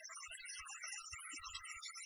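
Norteño dance music from a live band, with bass notes under a busy melody.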